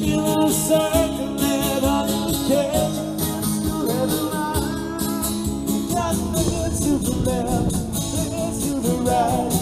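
A live band playing a song: a singer over guitar and a steady beat, without pause.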